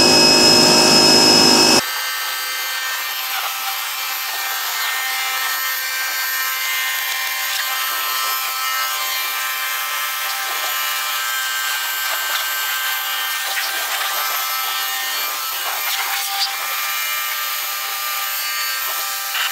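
Pressure washer motor spinning up with a rising whine that levels off and runs loudly for about two seconds. It then drops to a quieter, thinner steady hiss and whine as the washer sprays water over the car.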